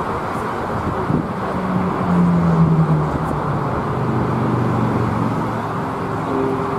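Airbus A330-300's twin jet engines at takeoff thrust during liftoff: a steady roar with a low hum that drops in pitch about two to five seconds in as the aircraft climbs away.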